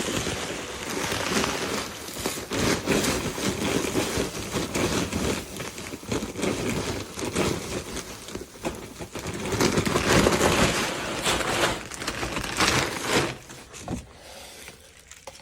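Rustling, scraping and crackling as a paper feed bag and loose feed are handled, going on irregularly and dropping away near the end.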